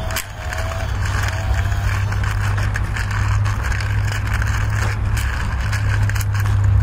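Steady low engine drone with scattered scraping clicks over it.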